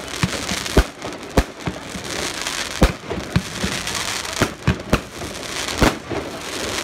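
Aerial fireworks bursting overhead: a run of sharp bangs at uneven intervals, about ten in seven seconds, over a steady hiss.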